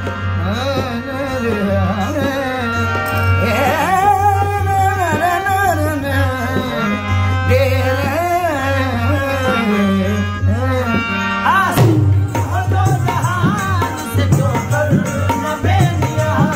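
Qawwali music: a male voice singing long, drawn-out melodic lines over a harmonium, with hand-drum accompaniment. The drumming comes in more strongly about twelve seconds in.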